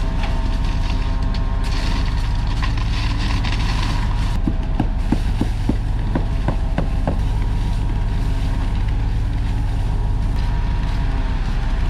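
Concrete truck's diesel engine running steadily during the pour, with a run of short knocks about five to seven seconds in.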